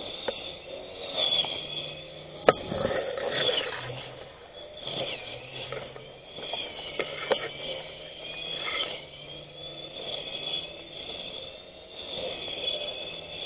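Electric grass cutter running and cutting grass: a wavering high whine over irregular scraping, with a few sharp clicks, the loudest about two and a half seconds in.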